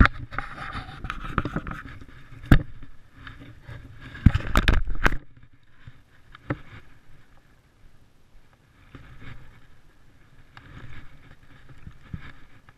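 Handling noise on a body-worn camera: shirt fabric rubbing and knocking against the microphone while a spinning reel is worked, with sharp knocks about two and a half seconds in and a louder bump around four and a half to five seconds in, then softer rustling.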